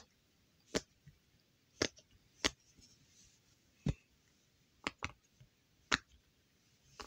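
Silicone pop-it fidget toy bubbles being pressed down one at a time by fingers, giving about eight sharp single pops at uneven intervals. Two come close together around five seconds in. The toy pops well, as it should.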